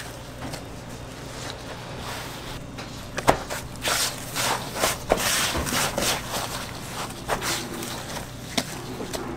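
Coarse breadcrumbs rustling and crunching as gloved hands press a bread sandwich into a metal tray of crumbs and scoop more over it, in irregular scratchy strokes. There is a sharp knock about three seconds in and a steady low hum underneath.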